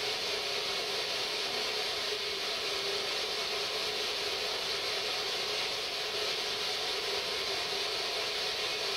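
Ghost box, a radio that sweeps through the frequencies, giving out a steady hiss of radio static.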